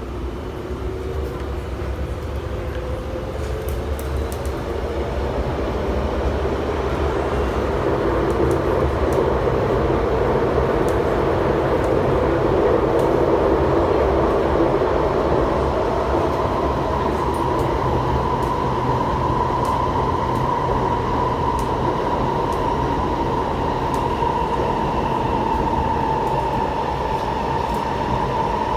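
Heard from inside the carriage: an MTR SP1900 (IKK) train's traction motors whine, rising in pitch as the train gathers speed, while wheel and track rumble grows louder. The whine then settles into a steady tone as the train runs at speed.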